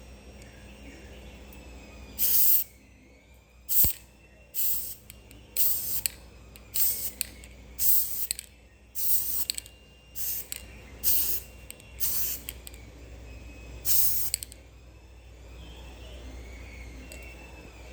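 Spray paint being sprayed onto a taped-up 3D-printed helmet in about eleven short hissing bursts, each under a second long, spaced roughly a second apart for about twelve seconds.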